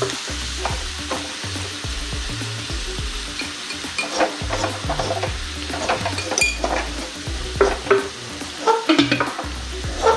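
Chopped onions frying in hot oil with turmeric and salt, sizzling steadily. A spoon scrapes and knocks against the pan again and again as they are stirred.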